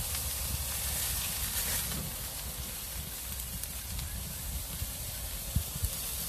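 Pork spider steaks sizzling directly over charcoal on a grill grate, a steady hiss of fat and juices hitting the coals, with two short knocks near the end.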